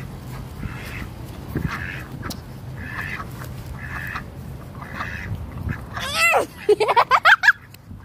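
Ducks quacking: soft calls about once a second, then near the end one loud call followed by a quick run of about six louder quacks.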